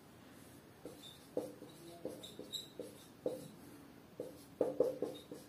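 Whiteboard marker writing on a whiteboard: a run of short, irregular scratching strokes with brief high squeaks, starting about a second in and growing busier near the end.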